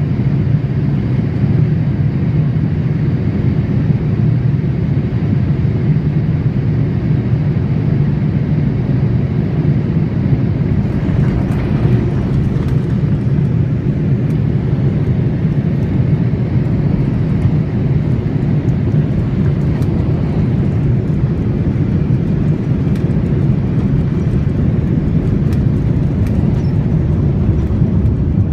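Steady jet engine and airflow rumble inside the cabin of a Boeing 787 in flight, with faint scattered ticks from about ten seconds in.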